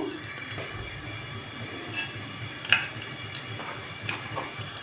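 Cumin seeds sizzling faintly in hot cooking oil in a pot, with a few scattered small ticks and pops, the loudest a little past the middle.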